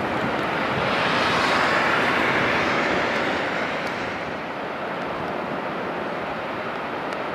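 A vehicle passing by: a rising and then fading rush of noise that peaks about two seconds in, over a steady background hiss of wind and water.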